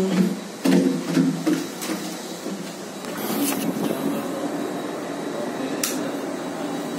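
A steady mechanical hum, like ventilation or air-conditioning machinery, with a few sharp clicks spread through and a brief rustle about three and a half seconds in.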